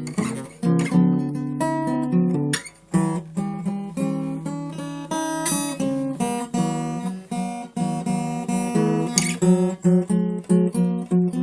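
Acoustic guitar played solo, plucked notes and strums over a low bass line, with a brief pause about three seconds in and quicker notes near the end.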